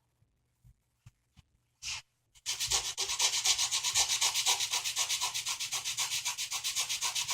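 A small wooden model-ship deck plank being hand-sanded with sandpaper, shaping its angled edge to fit. After a few light handling clicks, the sandpaper starts rubbing about two and a half seconds in and keeps going in quick, even strokes of about five a second.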